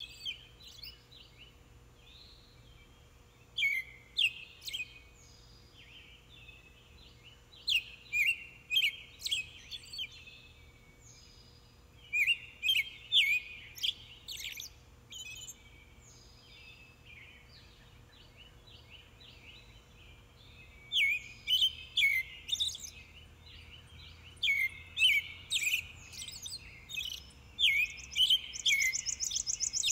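Small birds chirping at dusk: bursts of quick, downward-sweeping chirps with quieter pauses between them. A rapid high trill joins near the end.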